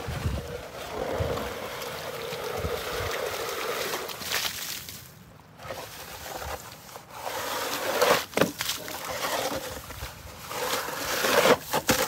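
Plastic snow shovel scraping along wet concrete, pushing slush and ice chunks: one long scrape over the first few seconds, then after a short pause shorter strokes with a few sharp knocks.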